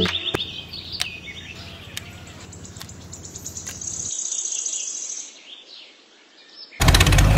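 Birds chirping with a steady high insect buzz for a couple of seconds, and a few sharp clicks. Near the end a small engine starts running loudly with a fast, even chugging rhythm.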